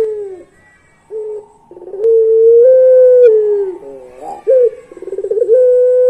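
Puter pelung, a Barbary dove kept for its long coo, cooing. A short note about a second in is followed by a long drawn-out coo that opens with a quick stutter, holds a steady pitch and slides down at the end, and a second long coo starts near the end.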